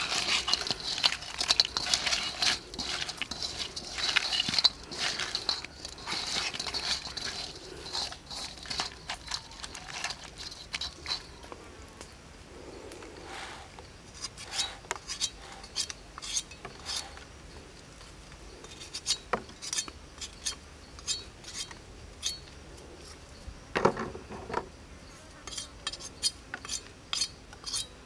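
Wet clicking and squelching as hands toss shell-on crayfish in chili sauce in a metal wok, shells knocking against the pan. Later come sparse light knocks of wood and bamboo as green sticks and a woven bamboo tray are handled on a stick grill, with one louder knock about 24 seconds in.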